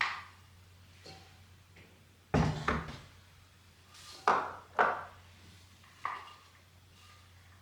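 Kitchen knocks and clatters of containers and utensils being handled: about six separate sharp knocks, the heaviest a dull double thump about two and a half seconds in, then two sharp clacks a couple of seconds later.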